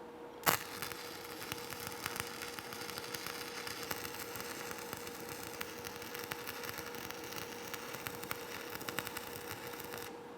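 Stick (shielded metal arc) welding arc laying a bead along a groove weld in steel plate. The arc is struck with a sharp crack about half a second in, then crackles and sizzles steadily for about ten seconds, and cuts off suddenly near the end when the arc is broken.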